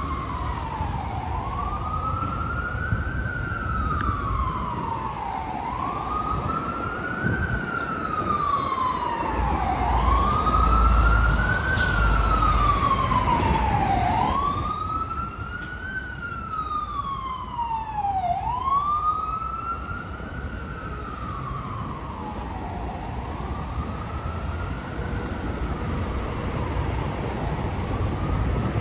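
Emergency vehicle siren in a slow wail, its pitch rising and falling about once every four seconds. It grows louder toward the middle and fades near the end, over the low rumble of street traffic.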